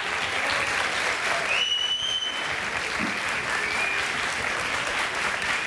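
Studio audience applauding steadily, with a short high whistle about one and a half seconds in.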